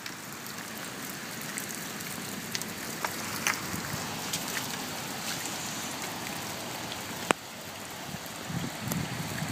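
Steady hiss of rain and rushing storm floodwater, with scattered light patters and one sharp click about seven seconds in.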